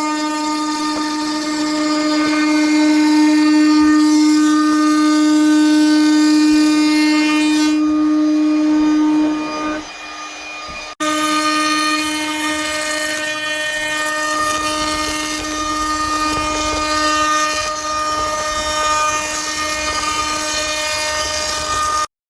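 Trim router with a round-over bit running, a loud steady high whine, as it rounds over the edges of the cedar door trim. The whine drops away briefly about ten seconds in, then starts again.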